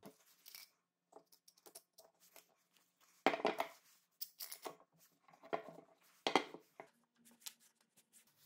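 Metal F-style bar clamps being set and tightened on a glued block of wood on a wooden workbench: an irregular run of short scrapes, clicks and knocks, the loudest in the middle.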